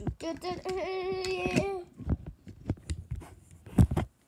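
A young child's voice holding a high, slightly wavering note for about a second and a half, followed by several dull knocks and thumps of the phone being handled, the loudest near the end.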